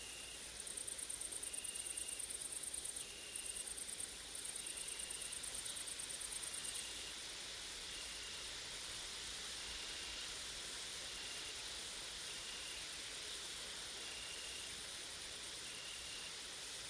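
Summer insect chorus: a grasshopper stridulating in a rapid, high-pitched buzz, loudest from about half a second in until about seven seconds, broken twice briefly. Under it runs a steady high insect hiss, and a faint short note repeats about once a second.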